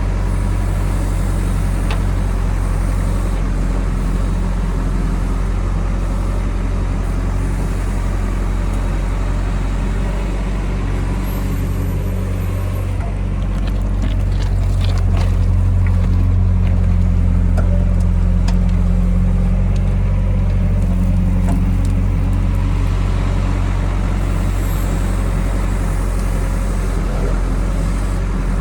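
JCB backhoe loader's diesel engine running steadily, its sound swelling for several seconds about halfway through, with a few short knocks just before the swell.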